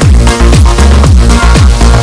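Background electronic dance music with a steady kick-drum beat, about four beats a second.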